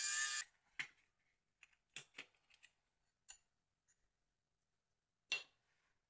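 A small electric precision screwdriver whirring, stopping about half a second in. Then scattered light clicks and taps as a metal shield plate and a phone circuit board are lifted and handled, with the sharpest click near the end.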